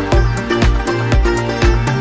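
Electronic background music with a steady kick-drum beat, about two beats a second, over a bass line.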